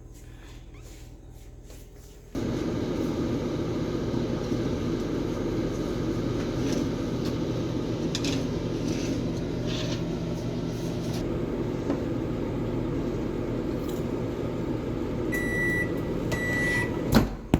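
Microwave oven starting up about two seconds in and running with a steady hum. Near the end it gives two short high beeps about a second apart, marking the end of the cooking cycle, followed by a sharp clunk.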